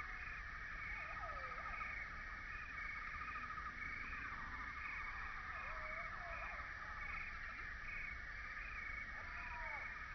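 Wetland ambience: a steady, rapidly pulsing insect chorus, with short calls that rise and fall in pitch now and then, a pair near the end.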